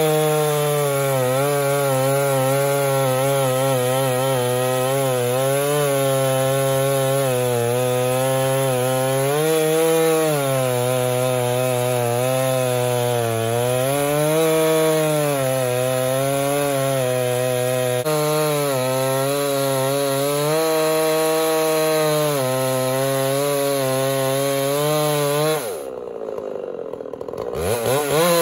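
Chainsaw engine running under steady load in an Alaskan chainsaw mill, ripping a lengthwise slab from a blue-stained pine log, its pitch wavering slightly as the cut goes on. Near the end the revs drop away for a second or two and then climb back.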